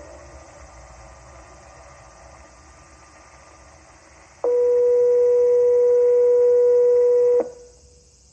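Outdoor loudspeaker of a Japanese municipal disaster-prevention radio: the echo of its chime melody dies away, then one steady beep about three seconds long starts sharply about four seconds in and cuts off abruptly, with a short echo. The beep closes the evening chime broadcast.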